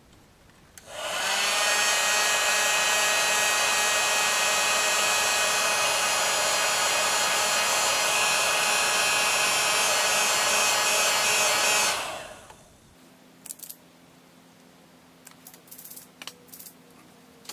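Handheld electric heat gun switched on about a second in. Its fan spins up and it blows steadily with a whine, and it is switched off after about eleven seconds.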